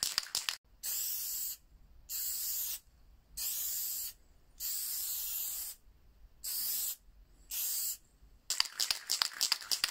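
Aerosol spray-paint can: a quick rattle of clicks as it is shaken, then six short hissing sprays in a row, then another run of rattling near the end.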